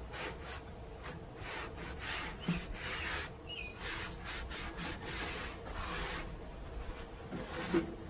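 Wadded paper towels rubbing and scraping greasy residue off the metal inside a Weber Genesis II gas grill's firebox, in repeated wiping strokes, with a couple of light knocks against the metal.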